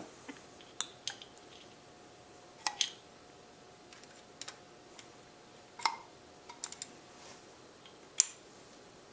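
Scattered light clicks and taps at uneven intervals as a pump oil can squirts oil onto the oil passage pipe bores of a Honda CBR1000F crankcase and an oil passage pipe is pressed into place by hand; the sharpest tap comes near the end.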